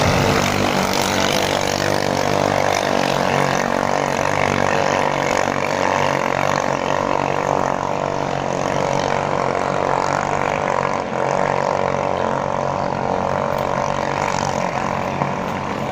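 Small Chinese-made engines of ketinting longtail racing boats running at race speed, a loud, steady drone that holds without a break.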